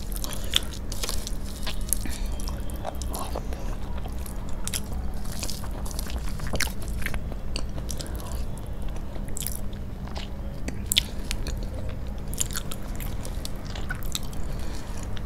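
Eating by hand: wet chewing and lip smacks with many short sharp clicks, and fingers squishing rice and curry on a steel plate, over a faint steady low hum.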